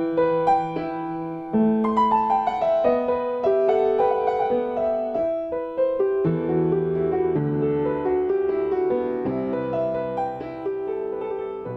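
Piano music: a gentle melody of single notes over chords, each note struck and left to ring, getting a little quieter near the end.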